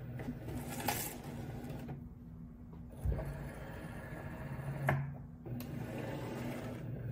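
Cricut Maker 3 cutting machine running, its motor-driven rollers feeding the cutting mat in and its tool carriage moving across, with a steady hum and a few clicks.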